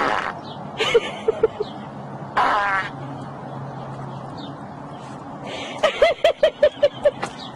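Small dog vocalizing: a few short, high yowls in the first three seconds, then a quick run of about eight short yelps near the end.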